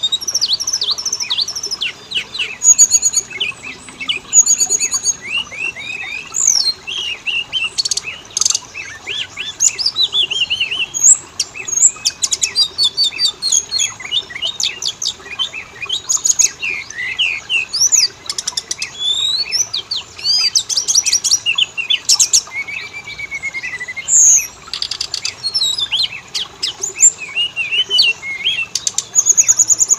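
Oriental magpie-robin singing a loud, unbroken, varied song of quick whistles, sliding notes and rapid trills.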